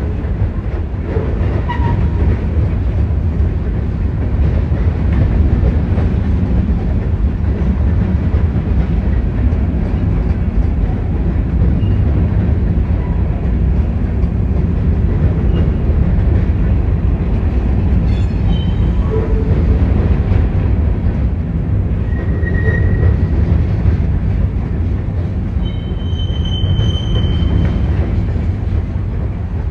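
Freight train cars rolling past in a steady, loud low rumble, with short high-pitched wheel squeals now and then and a longer squeal near the end.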